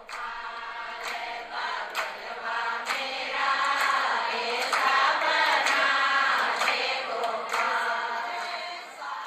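Kirtan: a group of voices chanting a devotional mantra together, growing louder about three seconds in, with a sharp percussive strike about once a second.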